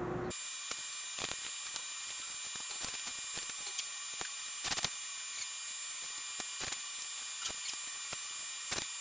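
Scattered light clicks and taps of a wooden board and tools being handled, over a steady hiss with a faint high whine.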